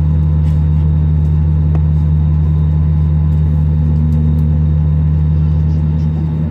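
Steady low hum inside the cabin of a stationary Airbus A320neo airliner, easing slightly near the end.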